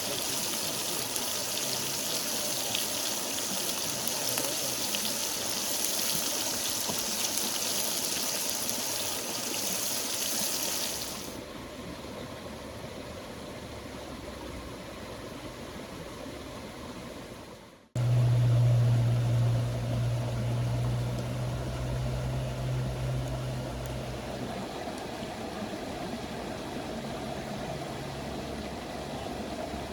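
Steady rush of flowing water that drops suddenly to a quieter level about a third of the way in. After a brief cut-out a little past the middle, a steady low hum joins the water for several seconds.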